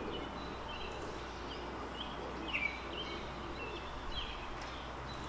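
Small birds chirping in short, repeated calls over a steady background hiss of outdoor ambience.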